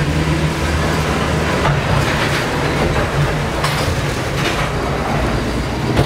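Sky ride gondola moving through its station: steady machinery noise with a low hum, broken by a few short knocks.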